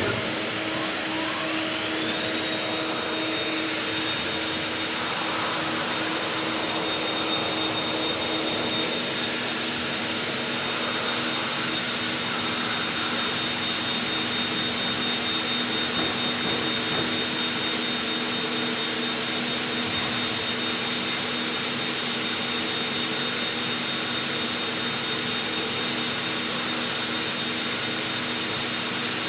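CNC lathe running a turning operation: a high whine rises during the first two seconds and then holds at a steady pitch, over a constant machine hum and hiss.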